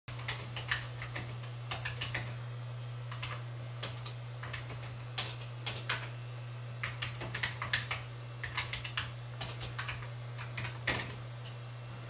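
Young great spotted woodpecker pecking at a peanut cake in a wire-cage feeder: irregular sharp taps, often in quick clusters of two to four, over a steady low electrical hum.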